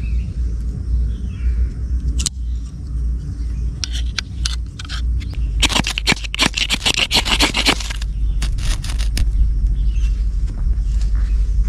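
Ferro rod scraped with a knife to throw sparks onto camphor and gauze tinder. It goes as a few single strikes, then a fast run of rasping strikes for about two seconds in the middle, then a few more single strikes. A steady low rumble runs underneath.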